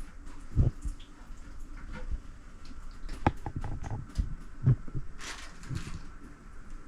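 Irregular clunks and knocks of parts being handled in a toilet tank during a fill valve replacement, with a brief hiss a little past five seconds in.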